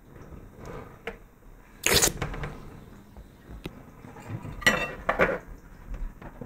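A few short clattering sounds of tableware handled on a table: one about two seconds in, then two close together near the five-second mark.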